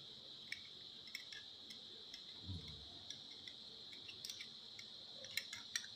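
Metal spoon clicking and clinking against a glass jar while black olives are scooped out: scattered small taps, with a quick cluster near the end. A steady high-pitched drone sits underneath.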